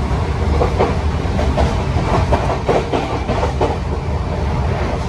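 Passenger train coach running along the line: a steady low rumble with irregular clicks of the wheels over the rails, heard from inside the coach at an open window.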